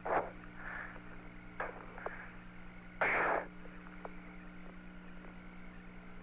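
Open Apollo 17 radio channel with a steady electrical hum and a few short hisses of noise, the loudest about three seconds in.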